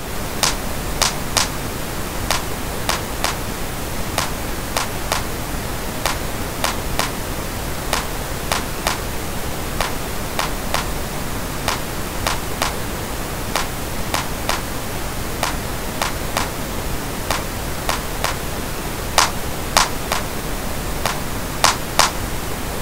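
Steady pink-noise hiss used as a mixing reference, with a sharp clap sample repeating over it in a loop. The clap's harsh upper frequencies are being cut with a parametric equaliser.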